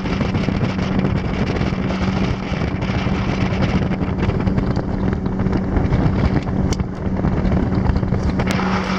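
Motorboat engine running steadily at speed, with wind buffeting the microphone and water rushing past the hull.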